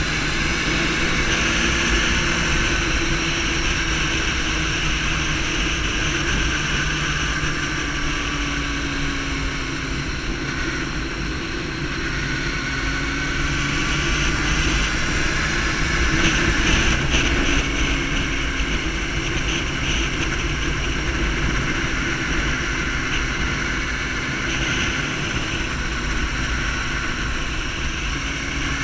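Sport motorcycle engine running at speed, its pitch rising and falling gently with the throttle through the curves, with wind rushing over the microphone.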